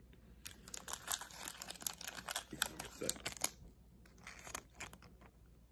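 Crinkling and rustling from handling a pack of foil trading cards, densest in the first few seconds, with a few lighter rustles near the end.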